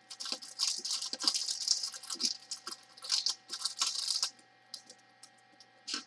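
Crinkly rustling of a dryer sheet being handled and rubbed between the fingers, with small clicks of loose resin diamond-painting drills, in quick scratchy bursts for about four seconds, then a brief rustle near the end. The dryer sheet is being used to take the static out of the drills.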